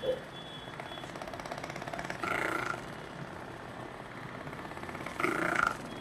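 Handheld percussion massage gun running against the muscles of the lower back and buttock, a fast, even buzzing pulse. Twice, about two seconds in and again near the end, it briefly grows louder with a higher whine.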